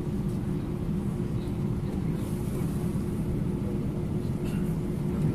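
Cabin noise of an Airbus A320 taxiing, heard inside the cabin: the jet engines at low taxi thrust giving a steady drone and hum over a low rumble.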